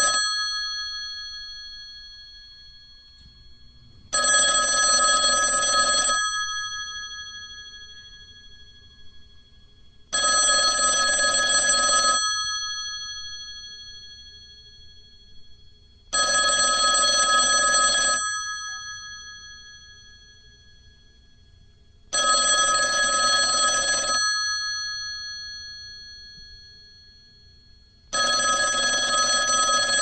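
Telephone bell ringing in bursts of about two seconds, one every six seconds, with the metallic ring dying away in the pause after each burst. Five full rings, plus the end of one just at the start.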